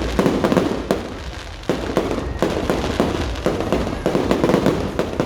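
Many fireworks and firecrackers going off at once: continuous dense crackling, with sharp bangs about once a second.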